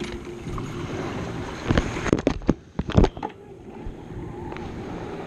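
Wind and water noise on the microphone, broken about two seconds in by a quick run of knocks and bumps against the kayak-mounted camera as it is handled and moved, the loudest knock near three seconds in.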